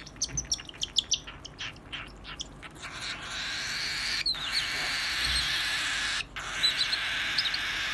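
Lutino cockatiels calling: a quick run of short, high, sharp chirps that fades over the first three seconds. Then a steady hiss follows, with a few faint chirps.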